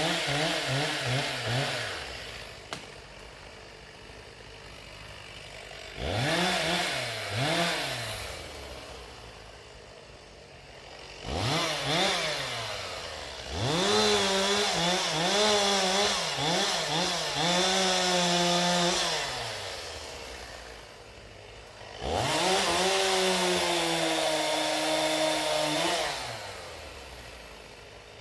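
Two-stroke chainsaw revving at full throttle in bursts and dropping back to idle between them. There are a few quick blips at the start and a double rev about six seconds in. Two longer runs of several seconds follow, about halfway through and near the end, in which the pitch sags and holds, as it does when the chain is cutting into wood.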